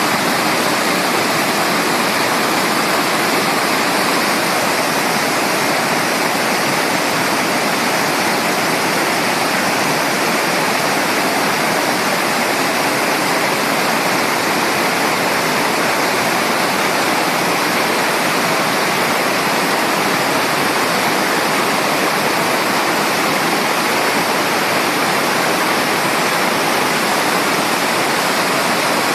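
Water rushing steadily, as from a waterfall or fast stream: a dense, even wash of noise with no single splashes or drips standing out.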